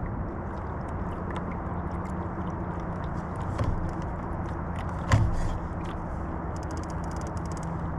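Pedal kayak under way on a lake: a steady low hum with water wash, a single sharp knock about five seconds in, and a quick run of fine ticking near the end.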